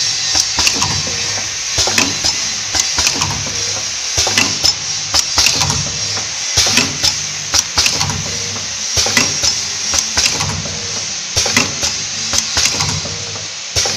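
SJIII-F100 automatic powder sachet filling and sealing machine running through its cycles, with a steady rhythm of clacks and knocks, a low hum that rises and falls with each cycle, and a steady hiss.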